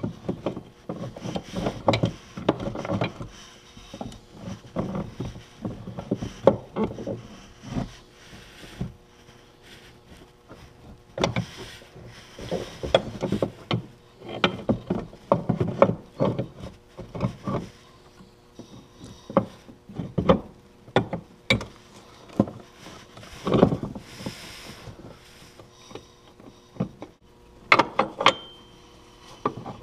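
Irregular clicks, knocks and rubbing of metal parts and tools being handled with gloved hands during reassembly of a snowmobile's chain case, sometimes in quick clusters, sometimes with short pauses between.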